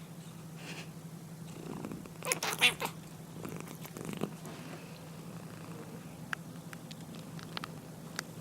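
Domestic cat snoring in its sleep, a steady low rasp, with a louder burst about two seconds in.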